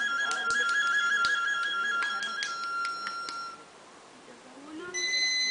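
Flute-like wind instrument playing a warbling trill of about four or five beats a second, which settles into a held note and breaks off about three and a half seconds in. After a short pause, a higher held note begins near the end. Scattered light clicks sound over the first part.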